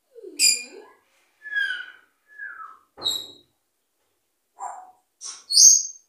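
Pet parrot calling: a string of about seven short whistles and squawks, some sliding down in pitch. The loudest is a shrill, high call near the end.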